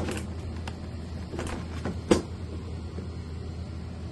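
Figure display bases knocking and clicking as they are handled and fitted against each other: a few short, sharp knocks, the loudest about two seconds in, over a steady low hum.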